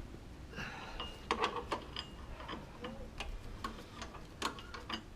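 Irregular light metallic clicks and clinks, some with a short high ring, as small steel parts such as new wheel studs are handled.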